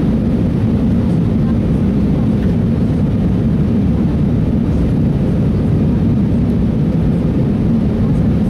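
Steady cabin noise of an Airbus airliner in flight: a deep, even drone of the jet engines and the airflow over the fuselage, unchanging throughout.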